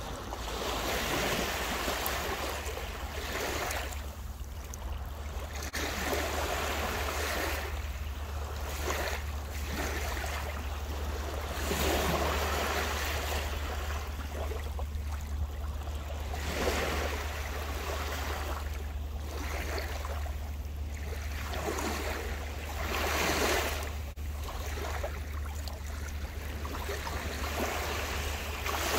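Small lake waves lapping on a sandy beach, each one washing up the sand as a soft surge of water noise every second or two, over a steady low rumble.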